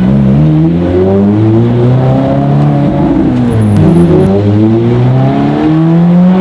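Ferrari F430 Spider's V8 through a full Capristo exhaust, heard from inside the cabin while driving. The engine revs up, eases off in the middle, then revs up again.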